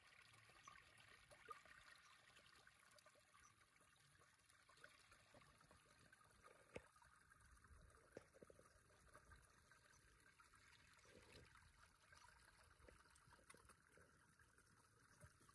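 Near silence: a faint trickle of water, with a few soft ticks.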